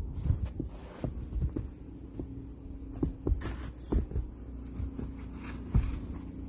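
Snow shovel working deep snow: irregular dull thumps and short crunches. A low steady hum comes in a few seconds in.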